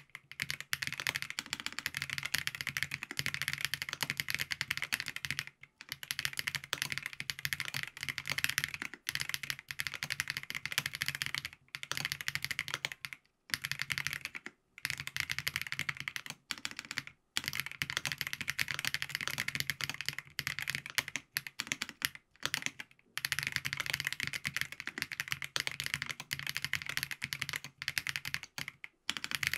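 Steady fast typing on a FancyTech Origin 65A mechanical keyboard with lubed Geon Black switches, a gasket-mounted POM plate and ABS keycaps: a dense stream of keystrokes broken by short pauses every few seconds.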